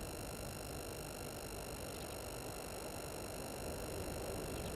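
Steady background hiss with several faint, high-pitched steady tones over it: electrical whine in the live camera's audio feed.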